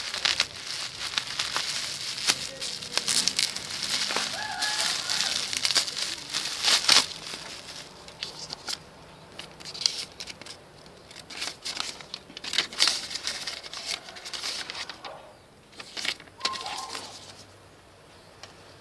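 Plastic bubble wrap crinkling and crackling as it is pulled off and unwrapped by hand. The crackles are dense for the first several seconds, then sparser as wrapping paper is handled, and they die away near the end.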